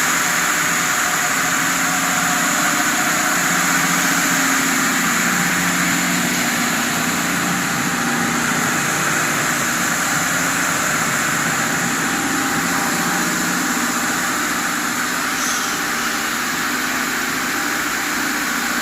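Poultry plucking machine running steadily, a loud even mechanical noise with a low hum underneath.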